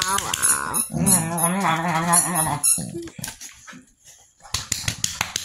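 Pit bull vocalizing in long, wavering whiny grumbles, a dog "talking" while being held, for about the first two and a half seconds. Then soft rustling and a few sharp clicks from the handling.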